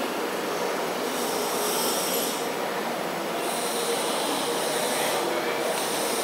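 Simco CNC-620R spring forming machine running, feeding steel wire and coiling it into a spring: a steady mechanical noise with a high hiss that comes and goes twice.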